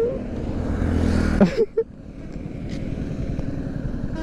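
A bus passes close by on the highway, its engine and tyres loud for about a second and a half before the sound drops away suddenly. A fainter, steady traffic rumble follows.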